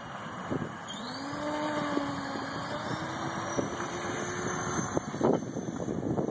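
Align T-Rex 500 electric RC helicopter spooling up: about a second in, a motor whine starts and rises in pitch as the rotor speeds up, with a high whine above it, over gusty wind on the microphone.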